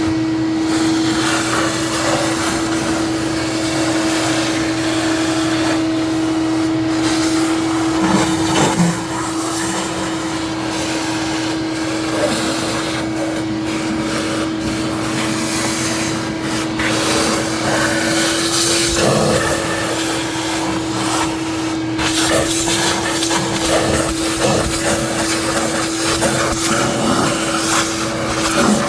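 A small motor-driven tool running steadily at one pitch while cleaning an engine's intake manifold gasket surfaces, with irregular rubbing and scraping against the metal.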